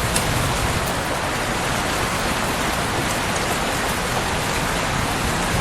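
Steady rain falling: an even hiss with a low rumble underneath and a few faint ticks.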